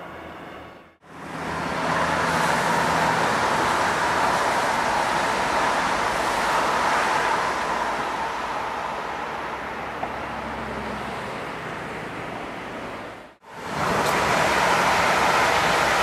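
ICE 3 (DB class 406) high-speed train passing: a steady rushing of wheels and air that builds up, holds, then slowly fades. After a short break near the end, a train of red double-deck regional coaches passes close by with a similar rushing noise.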